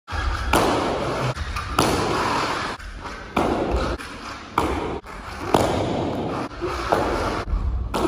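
Kicks slapping against handheld kick paddles, about six sharp strikes each followed by about a second of echo in a large hall.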